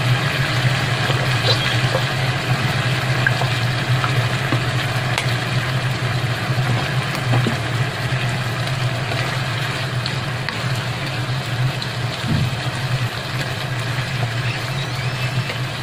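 Marinated beef frying in oil in a pan, over a steady low mechanical hum; a wooden spatula stirs the meat near the end.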